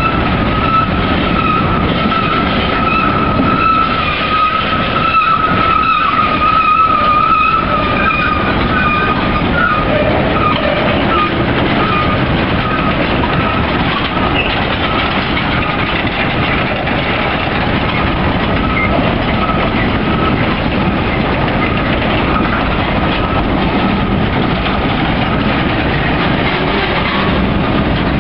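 Freight cars (covered hoppers and boxcars) rolling past at close range: a steady rumble and clatter of steel wheels on rail. A thin, steady high squeal sounds over it for the first eight seconds or so, then fades.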